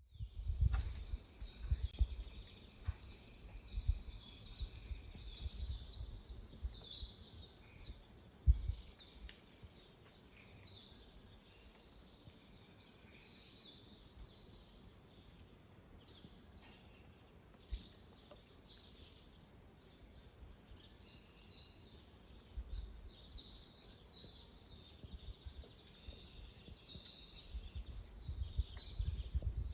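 Forest birds singing, many short high chirps and trills overlapping into a continuous chorus. Low rumbling thuds come and go underneath.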